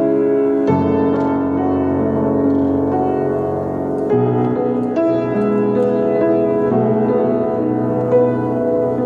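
Steinway & Sons baby grand piano played solo in a slow, sustained style, chords left to ring over one another. A new low bass chord is struck about a second in and another about four seconds in.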